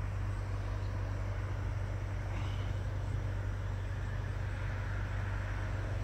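Steady low hum of a motor vehicle engine running, over faint outdoor background hiss.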